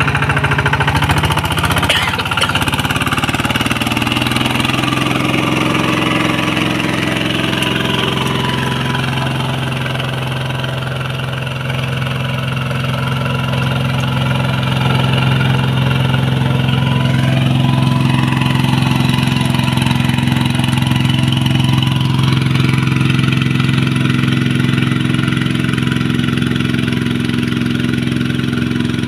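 Single-cylinder diesel engine of a two-wheel hand tractor running steadily under load as its cage wheels churn through a flooded rice paddy.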